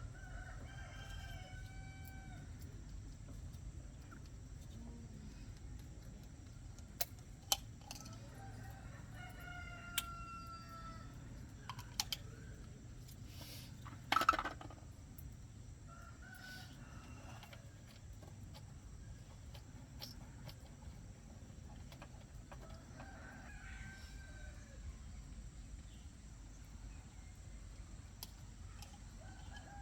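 Roosters crowing now and then, faint, about five times, each crow a falling call of a second or two. Between the crows come a few sharp clicks and one louder knock about halfway through.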